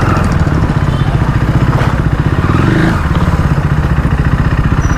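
KTM Duke 390's single-cylinder engine running steadily at low revs with an even pulsing beat, with one brief click about two seconds in.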